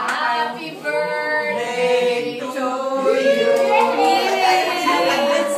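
A group of people singing a birthday song together, with several mixed voices holding long notes.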